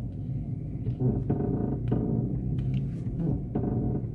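2010 Chevrolet Meriva's front suspension giving two drawn-out creaking groans, one about a second in and one near the end, as the steering wheel is turned with the car standing, over the steady hum of the engine idling. This creak when steering is the suspension fault the car was brought in for.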